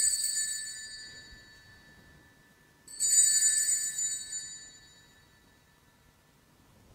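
Sanctus bell rung at the elevation of the chalice after the consecration. A ring already sounding fades away, then the bell rings again about three seconds in and dies away.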